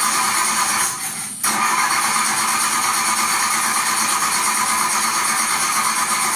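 Car engine starting sound effect, a starter cranking and the engine turning over in a steady run, with one short break about a second in.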